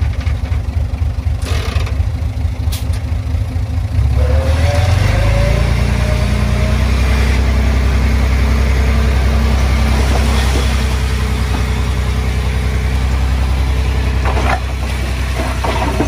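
Heavy diesel engine of the earthmoving machinery running under load. It speeds up about four seconds in, with a rising pitch, holds there, and eases off a little near the end.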